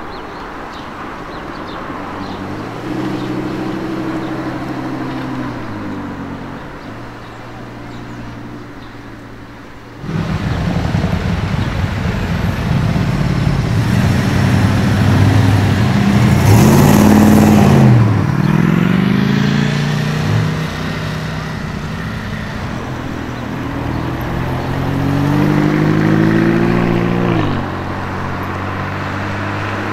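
Sports car engines accelerating and driving by on a street. Each engine note climbs and falls several times. The loudest car goes past about halfway through, its pitch rising and then dropping.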